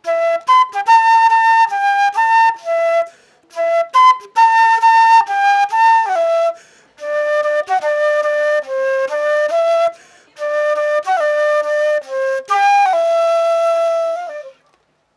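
Yamaha 281 transverse flute played solo: a melody in short phrases with brief pauses for breath between them, ending on a long held note that fades out near the end.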